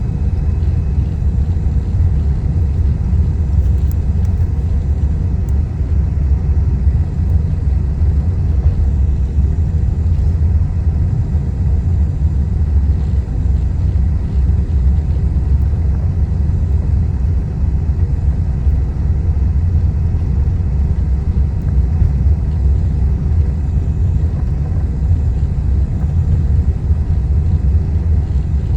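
Boeing 777 taxiing, a steady low rumble that holds level throughout, with faint steady tones above it.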